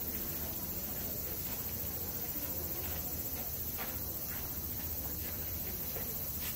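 Steady high chirring of insects, with a low hum underneath and a few faint taps about halfway through.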